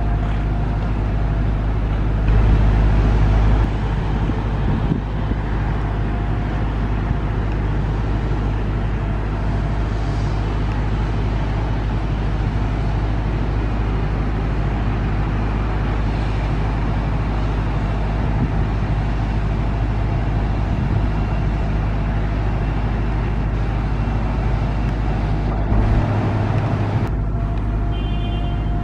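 Steady low rumble of Boeing 777 airliners' jet engines on final approach, swelling briefly about two seconds in and again near the end, with a faint engine whine coming in over the last few seconds.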